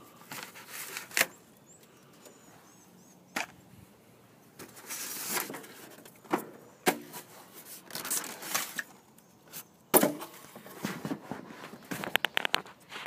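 Cardboard and plastic packaging being pulled and torn off a new heat pump unit. Scattered sharp knocks and cracks, a stretch of tearing or scraping about five seconds in, and a quick run of clicks near the end.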